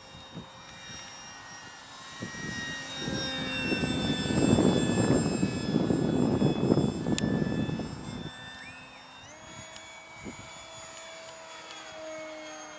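Electric brushless motor and propeller of an RC bush plane in flight, a whine of several steady high tones, with a loud rushing noise for about four seconds in the middle. About nine seconds in, the whine steps up in pitch as the throttle is opened.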